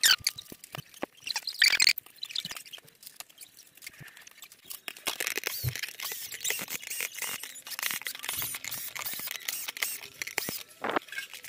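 Clicks from small plastic parts being handled, then a cordless drill-driver running in short spells from about five seconds in, driving small screws into a 3D-printed plastic plate with a scratchy, squeaky sound.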